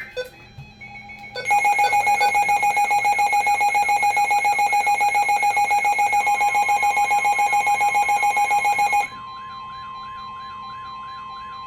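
Weather alert radio alarm for an incoming warning: a loud electronic alert tone pulsing several times a second with a warbling tone over it. About nine seconds in it drops to a quieter steady alert tone that still has a slower warble under it.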